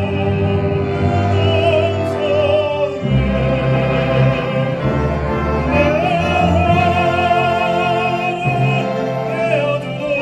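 A baritone singing in a full operatic voice over instrumental accompaniment, holding long notes with a wide vibrato.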